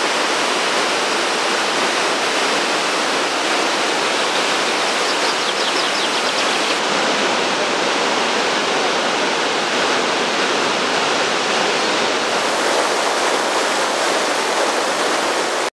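Waterfalls and river cascades pouring over rock steps: a loud, steady rush of white water.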